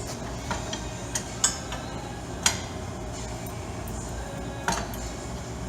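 Steel pins and washers clinking as they are fitted into the tractor's drawbar bracket: five or so sharp, separate metallic clinks, spread out with pauses between them.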